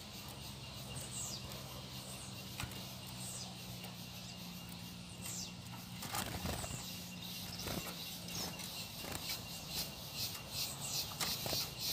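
Steady high insect buzzing with a pulsing insect trill that grows louder near the end, with a few faint, short, high downward chirps from small birds every couple of seconds and a light knock about six seconds in.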